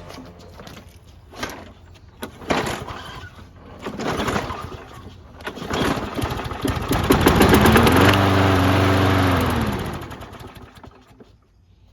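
Craftsman 6.75 self-propelled lawn mower's engine being pull-started: several recoil pulls, then about seven seconds in it catches and runs for a few seconds before its pitch falls and it dies out. This is its first start attempt on fresh oil and gas with a badly clogged air filter.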